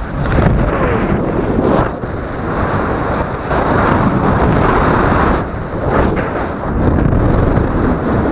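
Airflow rushing over the camera microphone of a tandem paraglider in flight, a loud, steady wind noise that eases briefly about two seconds in and again around six seconds before swelling back.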